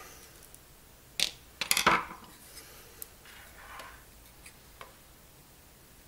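Plastic parts of a Coleco Super Controller clicking and clattering as it is pulled apart by hand: a sharp click about a second in, a quick cluster of louder clicks just before two seconds, then light handling noise and a couple of faint ticks.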